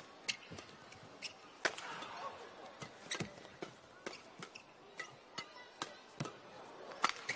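Badminton rackets striking a shuttlecock in a fast doubles rally: a quick, irregular run of sharp cracks, about two a second.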